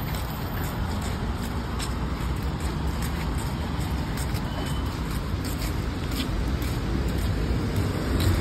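Steady road traffic: the low rumble of passing cars.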